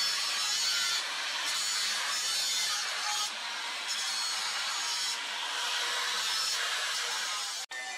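Angle grinder with an abrasive disc grinding a forged steel machete blank. It makes a continuous high grinding hiss that shifts in tone every second or two, with a brief break near the end.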